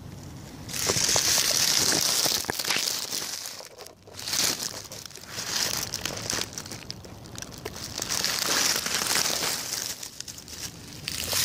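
Dry leaf litter rustling and crinkling close to the microphone in long stretches, with scattered sharp clicks.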